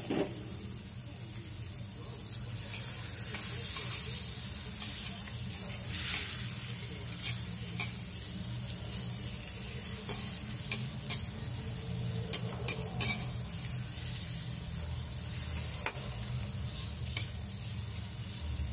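Sliced onions sizzling in melted butter in a pan, with a spatula stirring them and clicking against the pan now and then. A steady low hum runs underneath.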